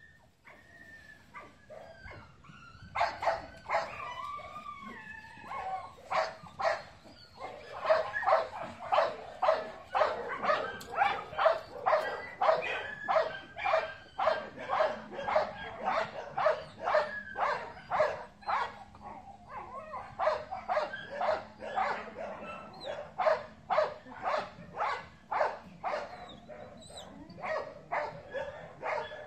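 A dog barking over and over in short, high barks, about two a second, starting about three seconds in.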